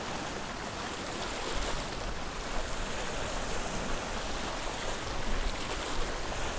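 Small waves washing and splashing over the rocks of a jetty, a steady hiss of moving water, with wind rumbling on the microphone from about a second and a half in.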